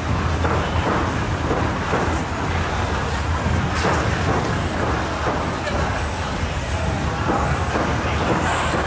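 A steady, heavy low rumble of heavy vehicles, with a few faint high squeals near the end, under the murmur of a crowd walking through a busy market.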